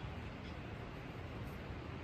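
Steady background noise, mostly low, with a few faint, brief high ticks.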